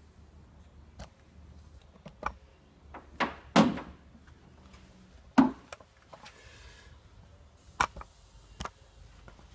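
About seven sharp clicks and knocks of plastic and metal parts being handled on a Nissan Murano Z51 front door as the outer door handle is worked loose, the two loudest a few seconds in, with a short rustle of handling after the second one.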